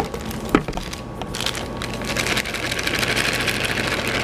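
A small motor whirring steadily with a low hum and fast fine ticking, starting about a second in.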